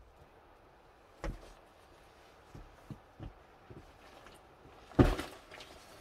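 Boots stepping and scuffing on rock boulders as a person climbs over them, with a few scattered light knocks and one sharp, louder thump about five seconds in.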